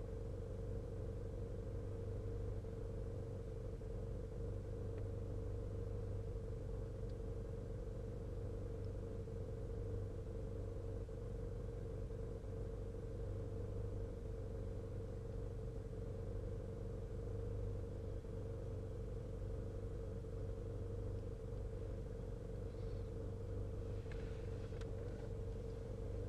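Vehicle engine idling, heard from inside the cab: a steady low rumble.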